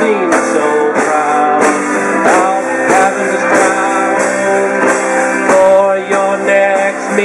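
Live band playing a rock song: acoustic guitar and keyboard over a steady drum beat, with no clear vocal line.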